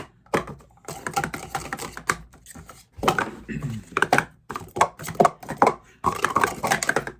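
Plastic Speed Stacks sport-stacking cups clattering as they are stacked up and down in quick succession: a fast, irregular run of light plastic clicks and taps.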